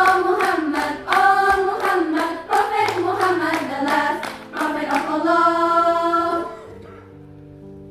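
Girls' choir singing together over a soft accompaniment of sustained low notes, ending on a long held note about six and a half seconds in, after which only the quieter accompaniment continues.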